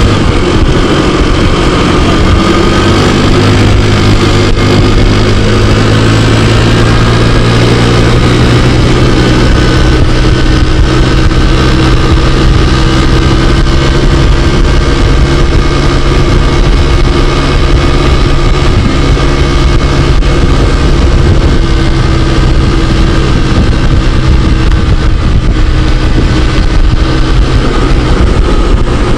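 Scooter engine running at a steady pitch while riding, under a rush of wind and road noise. It is running on a newly replaced air cleaner; the old one was clogged with dust and had made the engine bog and stall.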